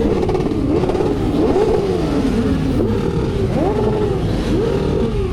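Motorcycle engines revved over and over in the convoy, the pitch rising and falling about once a second in a run of rev blips.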